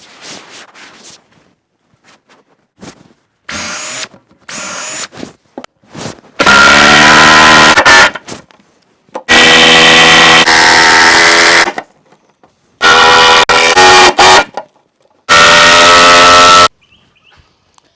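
Milwaukee cordless impact driver driving screws through timber boards into a beam. A few short trigger pulls come first, then four long runs of a loud, steady, pitched hammering buzz, each lasting about two seconds.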